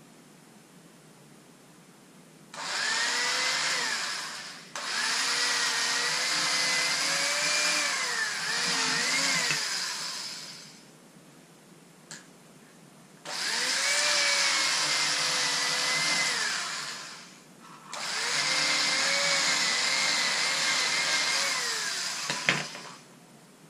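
A small handheld electric power tool runs in four bursts of a few seconds each, its motor whine wavering slightly in pitch as it works, with quiet pauses between. A sharp click comes near the end.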